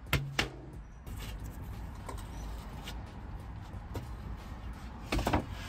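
Drywall being cut and handled: two sharp cracks in the first half-second, then a few light knocks and a short cluster of clicks about five seconds in, over a steady low rumble.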